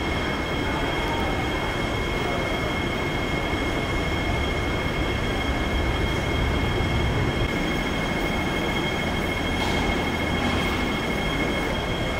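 Airport people-mover train running, with a steady high electric whine and a low rumble that swells midway.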